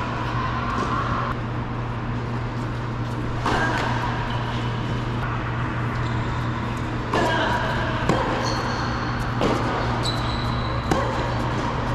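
Tennis balls struck and bouncing on an indoor hard court, a handful of sharp hits that echo through the hall, over a steady low hum.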